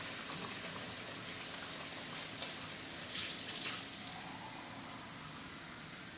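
Water running from a tap into a container, a steady hiss that eases a little about four seconds in.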